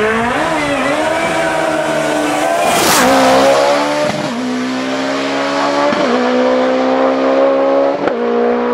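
Lancia Delta S4's twin-charged four-cylinder rally engine accelerating hard. It passes close about three seconds in, then pulls away with upshifts about four, six and eight seconds in, each a sudden drop in pitch.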